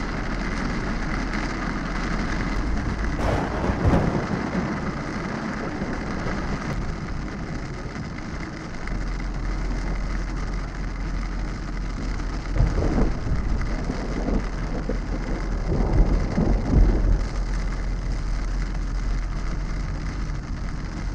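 Steady heavy rain on a moving car's windshield in a thunderstorm, with rumbles of thunder swelling up about four seconds in and twice more in the second half.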